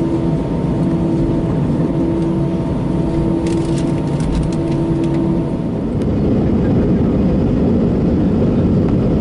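Jet airliner cabin noise while taxiing: engines running steadily under a droning hum. About six seconds in, the hum stops and the engine noise grows louder, with a few light clicks or rattles a little before that.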